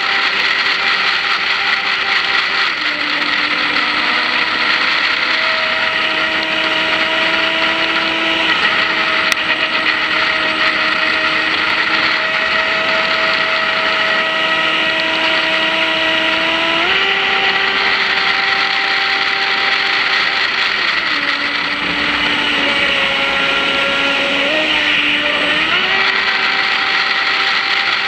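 Whine of an RC boat's 2075kV brushless electric motor running at speed, a steady tone that steps down in pitch about three seconds in, up again around seventeen seconds, and down and back up near the end as the throttle changes, over a constant rush of water.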